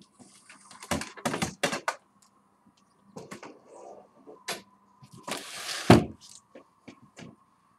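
Irregular clicks, knocks and clattering. There is a cluster of sharp knocks about a second in and a longer, louder clatter near six seconds in, over a faint steady hum.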